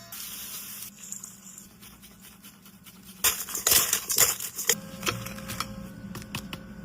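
Light kitchen clatter: utensils and dishes clinking and knocking, busiest between about three and five seconds in.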